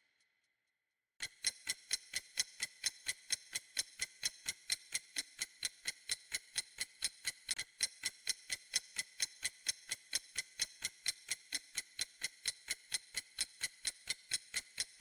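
Clock-ticking sound effect, sharp even ticks about four a second, starting about a second in: a quiz countdown timer running while the question waits for an answer.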